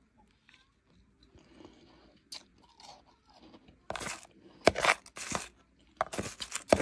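A person chewing a mouthful of blended, powdery ice. A few quiet seconds, then from about four seconds in a run of loud, sharp crunches in two clusters.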